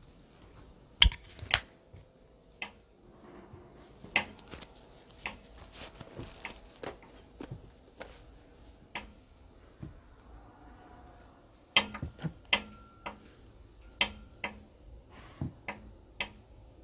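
Footsteps and handling knocks on a wooden deck: irregular sharp clicks and knocks, thickest about twelve seconds in, a few ringing briefly.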